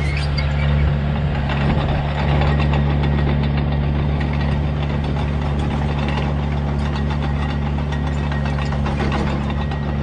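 2005 Komatsu D21A-8 crawler bulldozer's diesel engine running steadily as the machine drives across asphalt, with a rapid clatter of its steel tracks, easing slightly as it moves away.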